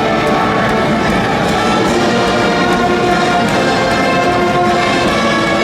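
High school brass band in a baseball stadium's stands playing a cheering tune, full ensemble with long held brass notes.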